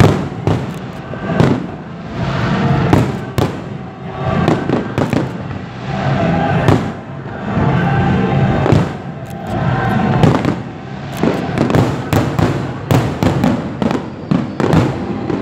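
Aerial fireworks going off in a continuous barrage of bangs, coming thick and fast near the end, with music playing underneath.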